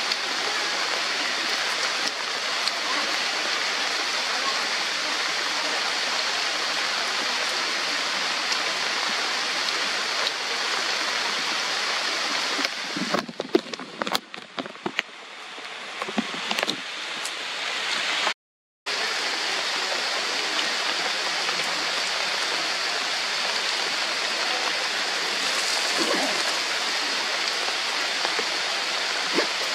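Steady heavy rain falling on forest foliage, a dense even hiss. About 13 seconds in it thins to scattered ticks and patters for a few seconds, cuts out for a moment, then comes back at full strength.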